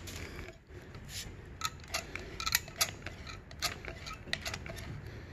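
Irregular light clicks and taps, several a second, over a faint low hum.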